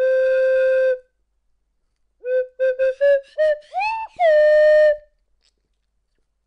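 Cartoon-style whistle sound effects: one held note, then a run of short toots, a quick upward slide and another held note.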